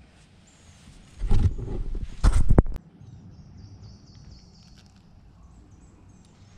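Loud bumping and rustling of the camera being handled and repositioned, from about a second in for a second and a half. After that a bird gives faint, high, quickly repeated chirps.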